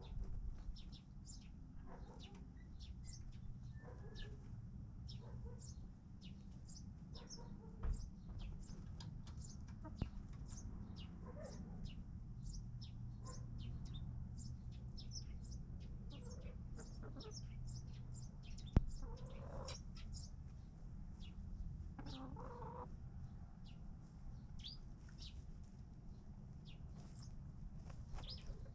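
Chickens clucking now and then, over steady, rapid high-pitched chirping. A few sharp knocks, the loudest about nineteen seconds in.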